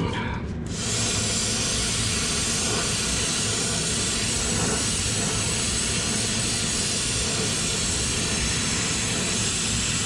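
Brazing torch burning with a steady hiss, lit suddenly about a second in, heating a copper refrigerant line joint on the compressor.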